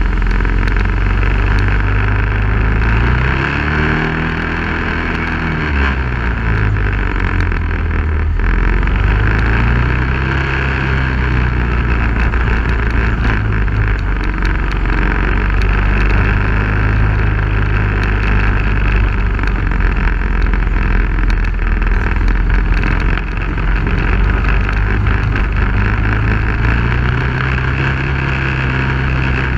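Engine of an off-road vehicle driven along a rough dirt trail, running steadily with its pitch rising and falling a few times as the throttle opens and closes, over constant road and wind noise with scattered rattles.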